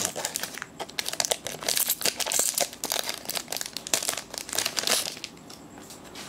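Foil wrapper of a Magic: The Gathering booster pack crinkling and crackling as it is handled and torn open. The crackling stops about five seconds in.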